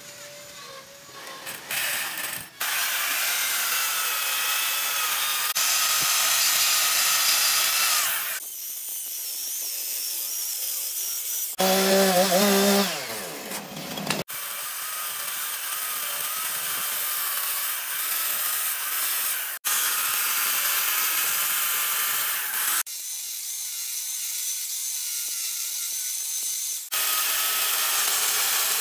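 A chainsaw runs and cuts into a hardwood stump, as a steady high-pitched cutting noise with a wavering whine. It is broken into separate passes that start and stop abruptly, after a quieter first couple of seconds. Around twelve seconds in, a lower-pitched running sound briefly slides down in pitch.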